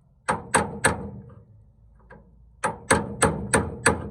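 Hammer blows on a punch against the steel tailgate hinge: three sharp metallic strikes, a pause, then five more at about three a second, driving the hinge metal in around the new brass pin sleeve.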